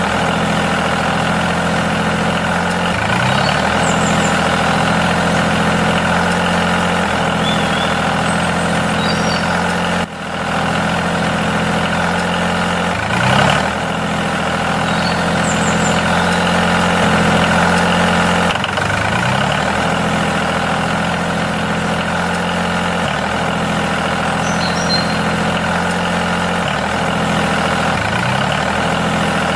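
The small electric motor of a homemade model tractor runs steadily with a hum while it pulls a spike cultivator through sand. Its pitch slides up briefly every few seconds.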